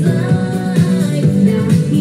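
A pop dance song with singing and a steady beat.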